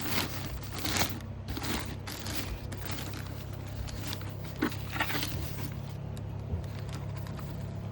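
A scoop scraping and rustling in a tub of horse feed supplement in several short bursts, with one sharp click about halfway through. A steady low hum runs underneath.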